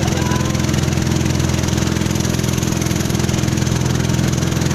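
A small engine running steadily at idle, with an even chugging pulse and no change in speed.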